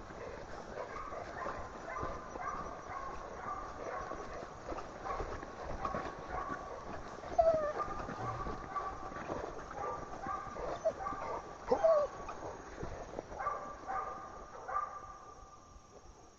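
Hog-hunting dogs barking over and over, a bay: the sign that they are holding a hog.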